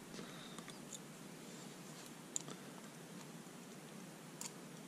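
Faint small clicks and scratching of a metal pick prying a rubber seal out of a moped fuel tap, a handful of sharp ticks over quiet room tone.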